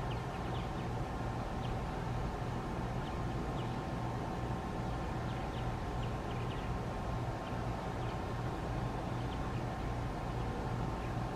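Steady low mechanical hum with a faint constant tone over it, and faint short bird chirps scattered throughout.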